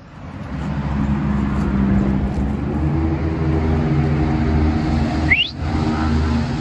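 Steady, loud low engine hum, as of a motor vehicle running. A single short rising chirp about five seconds in.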